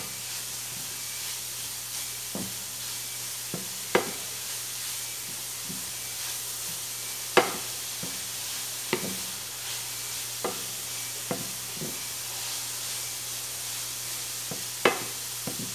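Grated carrot frying in olive oil in a pan, a steady sizzle. A wooden spatula stirs it and knocks against the pan now and then, about seven times, loudest about halfway through and near the end.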